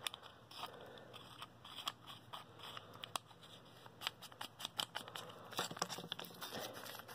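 Faint, irregular clicks and light scraping as a metal tail cap is screwed onto the threaded body of a Surefire Z2 flashlight, with hand-handling noise.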